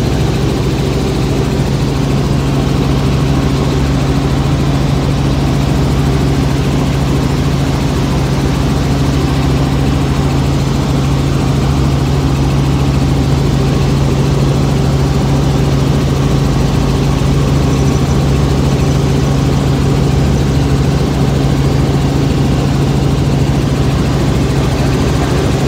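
Helicopter in level flight heard from inside the cabin: a loud, steady rotor and engine sound with a strong low hum and its overtones, unchanging throughout.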